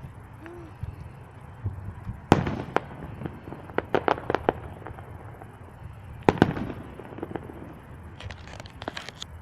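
Fireworks going off: sharp bangs, the loudest about two seconds in and again about six seconds in, with clusters of quick pops between and near the end.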